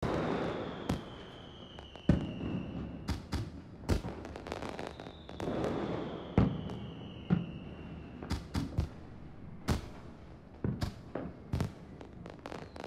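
Fireworks: a whistle sliding down in pitch, heard twice, among sharp bangs and scattered crackling pops.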